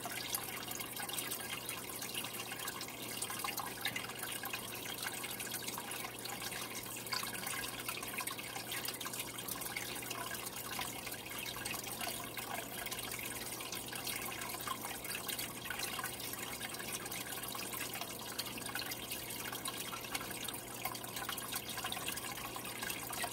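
Aquarium water trickling and dripping steadily, with many small splashes and a low steady hum underneath.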